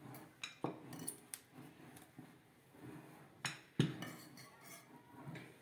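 A kitchen utensil knocking and scraping on a hard surface while the cooling jaggery mixture for chikki is spread out, with a few sharp clinks; the loudest two come close together a little past the middle.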